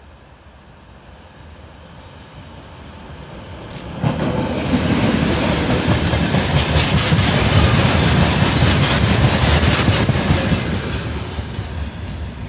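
ChME3 diesel shunting locomotive and a short rake of open freight wagons passing close by: the sound builds as the train approaches, jumps loud about four seconds in as it draws level, with the wagons' wheels clacking over the rail joints, then fades near the end as the train moves away. A brief high squeal comes just before it draws level.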